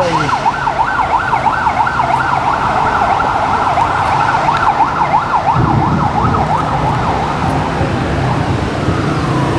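Electronic siren in a rapid yelp, sweeping up and down about four times a second, ending in one slower falling sweep near the end. A low vehicle engine rumble joins a little over halfway through.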